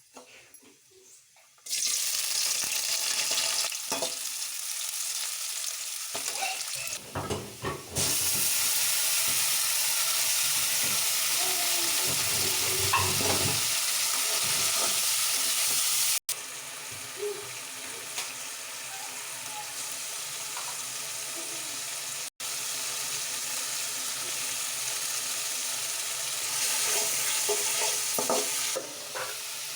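Food sizzling in hot oil in a cooking pan while being stirred, with occasional knocks of the spoon against the pan; the sizzle starts suddenly about two seconds in.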